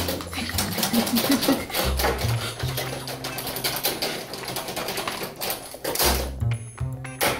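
Rapid, irregular clicking and rattling, like a typewriter's clatter, over background music with low held bass notes that change in steps.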